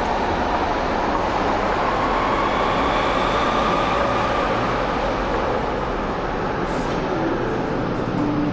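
Berlin U-Bahn train running along the track: a steady rumble with a faint whining tone that rises slightly over the first few seconds, then fades.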